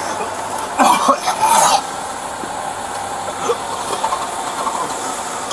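A man coughing several times in quick succession, about a second in, over steady background noise.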